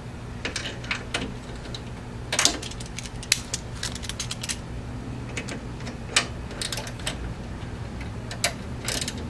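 Hand tool clicking and scraping on a steel screw in a motorcycle's chrome primary cover: irregular sharp metallic clicks as the derby-cover screw, its hex head rounded off, is worked loose.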